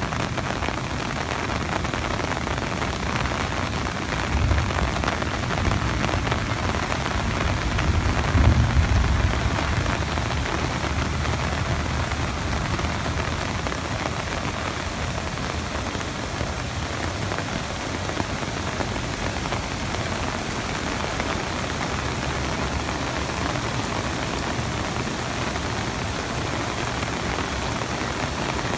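Steady rain and floodwater rushing down a drainage channel, churning over stepped concrete drop structures, as an even, continuous wash of noise. Two brief low rumbles swell up about four and eight seconds in.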